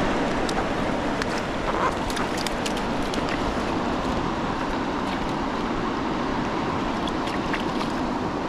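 River current rushing steadily past, with scattered small clicks and splashes as a trout is handled in a landing net in the water.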